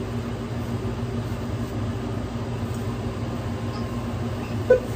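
Steady electrical hum of sandwich-shop kitchen equipment, with a single short clunk near the end as the countertop toasting oven's door is pulled open.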